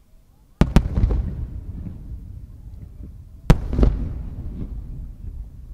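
Aerial firework shells bursting overhead: two loud bursts, about half a second in and about three and a half seconds in. Each is a sharp crack, doubled, followed by a low rumble that fades away.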